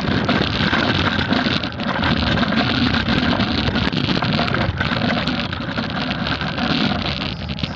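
Loud, rough, continuous wind rumble and handling noise on a handheld phone's microphone while on the move.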